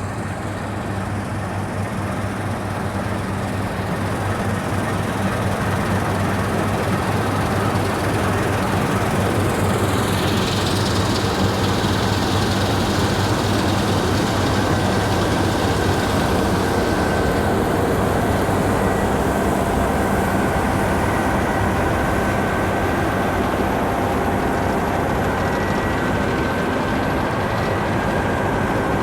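Heavy harvest machinery with diesel engines running steadily at work, growing louder over the first few seconds, with a thin steady high whine joining about halfway through.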